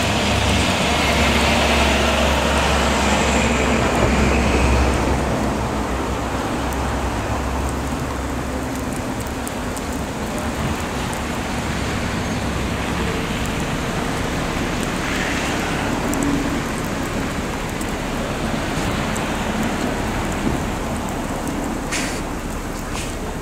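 Nova Bus LFS city bus driving on a slushy, snow-covered road. For the first five seconds or so its low engine rumble and the hiss of tyres through slush are loud, then both fade into a steady wash of traffic and slush noise. Two short clicks come near the end.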